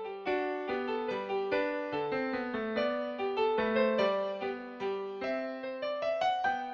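Background piano music: a gentle melody of quick, evenly struck notes.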